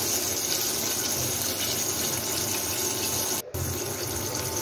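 Battered chicken pieces deep-frying in hot oil in a saucepan, a steady sizzling and bubbling. It breaks off for a moment about three and a half seconds in.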